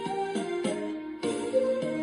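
Instrumental backing music playing without a whistled melody over it.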